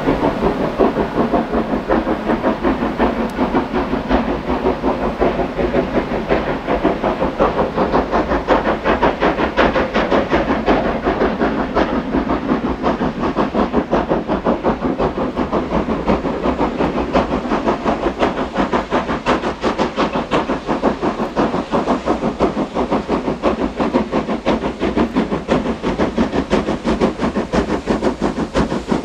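Steam locomotive working hard up a 1 in 49 gradient, its chimney exhaust beating in a steady, rapid rhythm over a hiss of steam.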